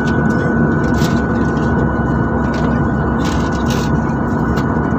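Steady airliner cabin noise in cruise flight: an even roar of jet engines and airflow with a constant hum through it. A few short faint hisses or clicks sound over it.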